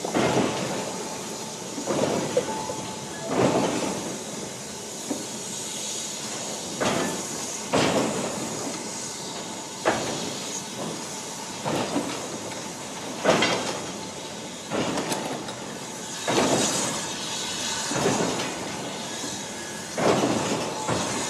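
Vintage goods wagons rolling slowly past, their wheels clunking over rail joints every second or two over a steady hiss.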